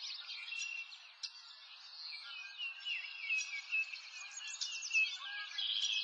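A chorus of small birds chirping and twittering together: many short, high chirps overlapping without pause, with nothing low underneath.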